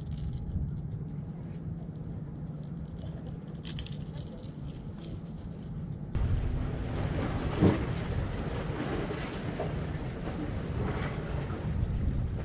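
Wind noise on the microphone with sea washing against the rocks, and a few sharp clicks a few seconds in. About six seconds in the noise abruptly gets louder and rougher.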